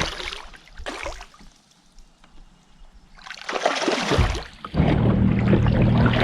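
A few short splashes and knocks of water and kayak handling, then about five seconds in an electric trolling motor starts a steady hum, with water rushing along the kayak's hull.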